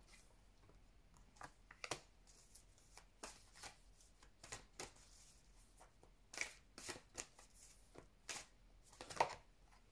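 Tarot cards being shuffled and handled by hand, with a card drawn and laid on the spread: faint, irregular flicks and slides of cards, a few louder ones near the end.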